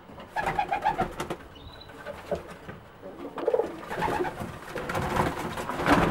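English tippler pigeons cooing in a small wooden loft: a run of coos about half a second in and more later. From about four seconds in, wings flap as a pigeon takes off from a perch.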